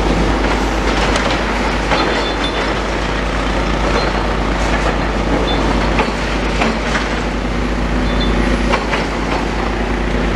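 Demolition excavators running steadily at a distance, with a few sharp knocks and clatters of material being broken, about two, six and nine seconds in.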